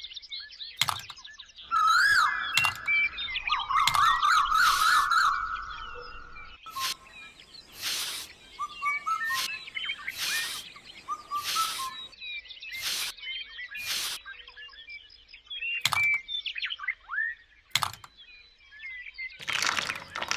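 Birds chirping and twittering in short rising and falling calls, broken by about a dozen short, loud hissing bursts.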